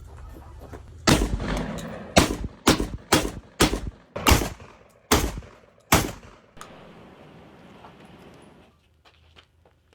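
A firearm fired eight times in quick succession, the shots about half a second to a second apart, each with a short echoing tail. The shooting stops after about six seconds.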